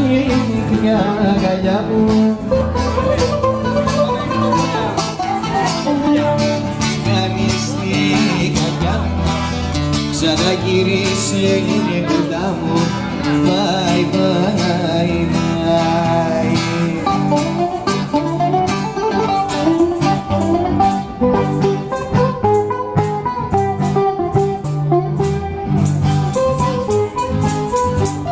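Live Greek music from a bouzouki and an acoustic guitar: a plucked string melody over strummed guitar chords, playing without a break.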